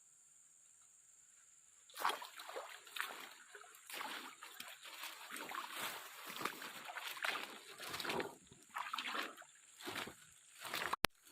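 Water splashing and sloshing in irregular bursts, starting about two seconds in over a faint high insect drone, with a sharp click near the end.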